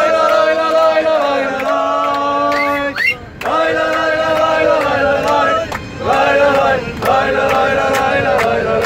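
A group of men singing a football chant in unison, in sung phrases with short breaks, with hand claps keeping time.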